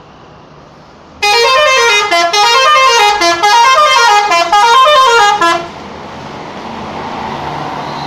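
Bus telolet horn playing a loud multi-note tune, the notes stepping up and down, starting about a second in and stopping after about four seconds. It is followed by the steady rushing noise of the bus passing close by.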